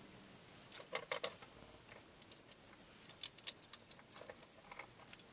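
Faint, irregular clicks and taps, in small clusters about a second in, around three seconds in and near the end, over low room noise.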